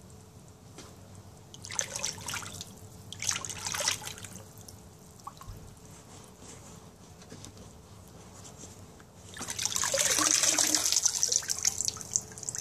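Water in a plastic tub, sloshing briefly twice as a deer skull is worked down into it during a hydrographic dip. Then, from about three-quarters of the way through, a longer stretch of water pouring and dripping off the skull back into the tub as it is lifted out.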